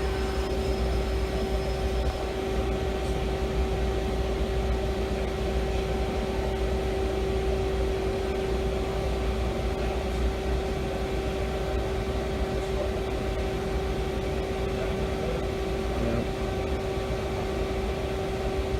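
Robinair Cool-Tech AC recovery machine running steadily with a constant hum, its compressor pulling refrigerant out of a car's AC system.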